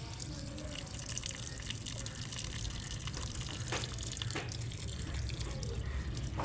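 Water running from a garden hose pipe and splashing into plant pots, a steady rush with two short clicks in the middle.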